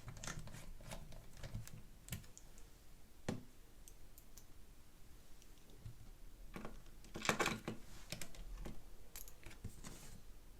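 Scattered light clicks and taps of a small screwdriver and screws on a netbook's plastic case as the screws are driven back in, with a denser cluster of clicks about seven seconds in.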